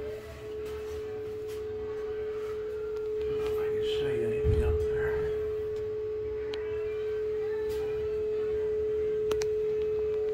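A steady high-pitched hum, one unbroken tone, with a dull handling thump about four and a half seconds in.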